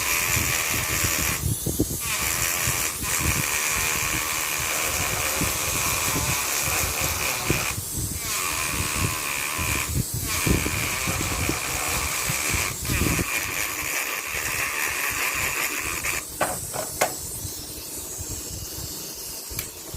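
Small handheld electric rotary tool whining as it buffs the metallic silver finish off a steering knob, stopping briefly a few times and switching off about 14 seconds in. A few sharp clicks follow near the end.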